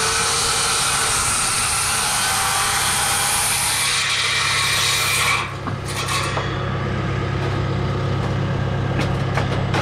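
Worm-drive circular saw cutting through OSB wall sheathing, running for about five seconds and then stopping suddenly. After that an engine keeps up a steady low hum, with a few light clicks and knocks.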